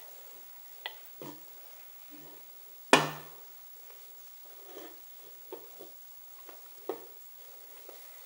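A stainless steel exhaust downpipe being turned and handled while heat wrap is wound onto it: scattered light knocks and rustles, with one sharp knock about three seconds in.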